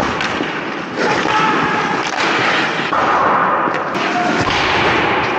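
Ice hockey skate blades scraping and carving the ice close to the net, a loud hiss that grows about a second in, with a couple of sharp clacks of sticks or the puck.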